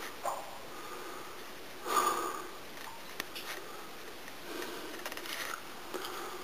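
A person's breathing and sniffing inside a mine tunnel: a few short noisy breaths, the loudest about two seconds in, with faint clicks between.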